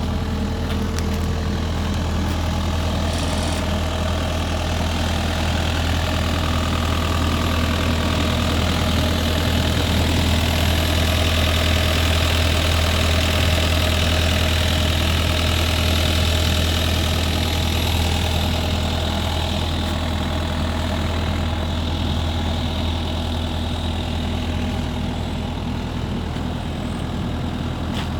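Case TV380 skid steer's diesel engine running steadily with a deep hum, swelling a little louder in the middle before settling back.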